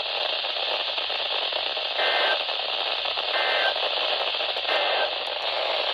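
Weather radio receiver hissing with static, cut by three short bursts of the EAS/SAME digital data tone about a second and a quarter apart, the end-of-message code that closes a warning broadcast.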